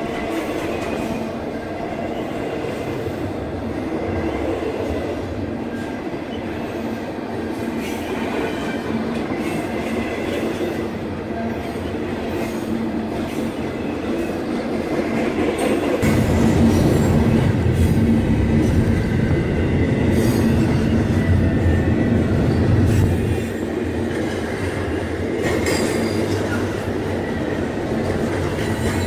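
Double-stack intermodal freight cars rolling past: steel wheels on rail making a steady rumble with clickety-clack, growing deeper and louder for several seconds past the middle before easing back.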